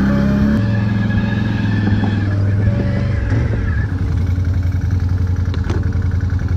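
Can-Am 6x6 ATV's V-twin engine running while driving over rough ground, its pitch dropping in steps about half a second and three seconds in, then holding steady. A couple of short knocks near the end.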